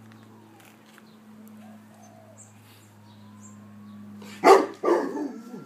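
A Rottweiler barks twice in quick succession about four and a half seconds in, reacting to a distant ambulance siren. The siren wails faintly behind the barks, its pitch slowly rising.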